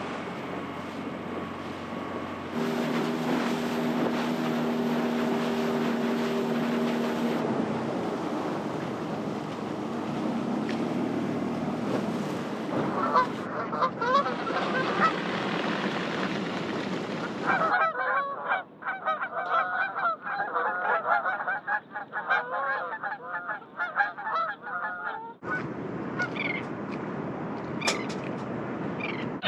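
A flock of waterbirds calling, many short overlapping calls, thickest in the middle and again near the end. In the first few seconds a steady hum with a few held tones.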